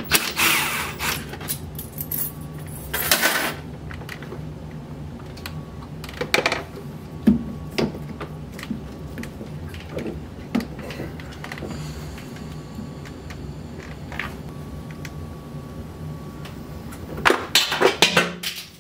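Hand work in a truck's engine bay: a cordless drill/driver at the airbox fastener in two short bursts near the start, then scattered clicks, taps and rattles of hoses, clamps and tools being handled, with a cluster of clicks near the end, over a steady low hum.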